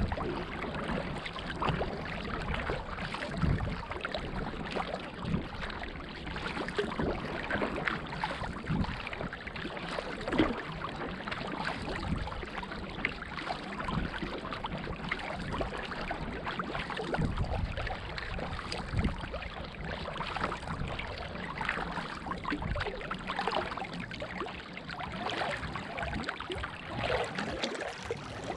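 Sea kayak under way: a double-bladed paddle dipping and splashing on alternate sides and water rushing along the hull, with gusts of wind on the microphone.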